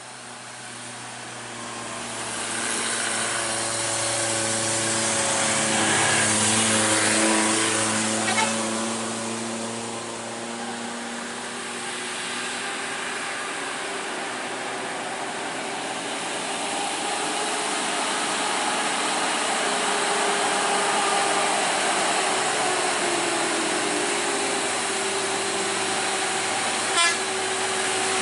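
A car passes, then the diesel engine of a heavy Mercedes-Benz Axor tractor-trailer runs steadily and grows louder as it comes close. A brief sharp sound is heard near the end.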